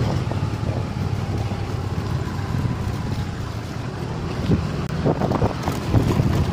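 Wind buffeting the microphone over the steady low rumble of a motorcycle riding along, with a few short knocks and jolts late on as it bumps over the railway tracks of a level crossing.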